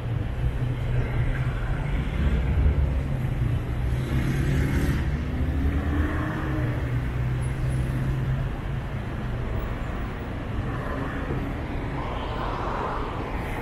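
City road traffic: a vehicle engine running steadily close by for most of the stretch, with a low rumble that eases off after about eight seconds.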